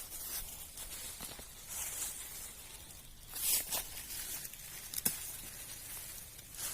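Rustling and scuffing handling noises, with a sharp click about five seconds in.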